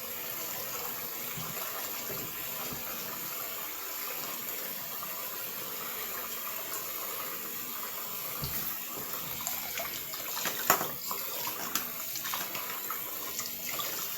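Faucet running hot water steadily into a stopped-up bathroom sink, filling it to test the freshly cleared drain. A sharp click stands out about three-quarters of the way through.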